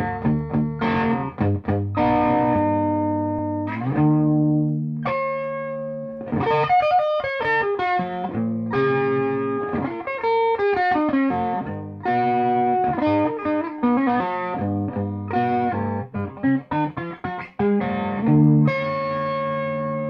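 Black Spanky (Davison) electric guitar with P90 pickups and a silicon-diode tone circuit, played through a Peavey Bandit amplifier. It plays chords, then fast single-note runs, and near the end strikes a chord that keeps ringing.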